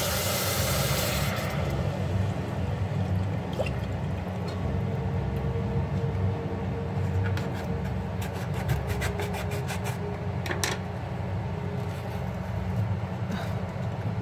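Liquid poured from a carton into a stainless steel saucepan, a splashing hiss that stops about a second in. After it, a steady low hum with scattered light clicks and ticks, thickest from about seven to eleven seconds in.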